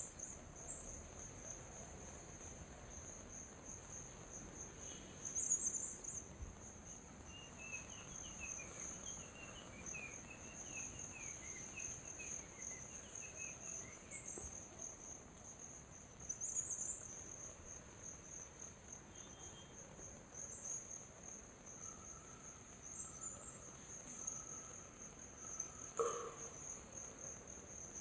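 Steady, high-pitched chorus of insects, pulsing slightly. A few faint bird chirps come in the middle, and there is a single sharp click near the end.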